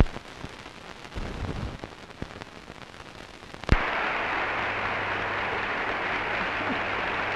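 Conference-hall audience applauding: a steady clapping wash that starts abruptly after a click about halfway through, following a quieter stretch with a few low knocks. A steady mains hum from the old film soundtrack runs underneath.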